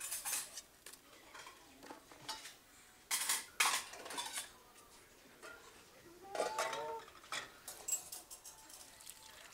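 Stainless steel pots, pans and a metal ladle clanking and clinking, with a cluster of sharp knocks about three to four seconds in.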